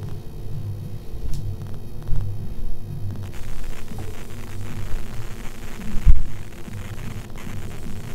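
Cotton cloth being handled and shaken out close to the microphone, over a low throbbing hum, with one loud low thump about six seconds in.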